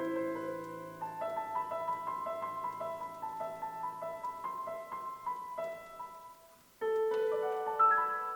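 Instrumental duet music, a piece performed by two players. Low held notes give way about a second in to a repeating figure of a few notes a second. It fades to a brief near-silence just before the end, then a new, louder phrase comes in.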